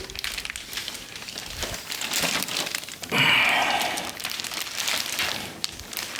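Plastic packaging crinkling and rustling as it is pulled off a saw part by hand, with a louder spell of crinkling about three seconds in.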